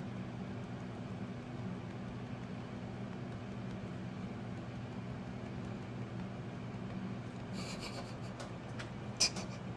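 Steady low hum, with a few faint clicks and taps near the end.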